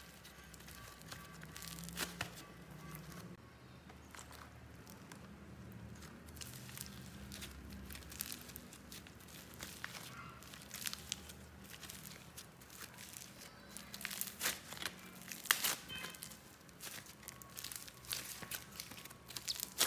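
Hands kneading, folding and stretching sticky slime mixed with soft clay, giving irregular small crackles and tearing sounds as the stretched slime pulls apart and folds back, busiest about three-quarters of the way through.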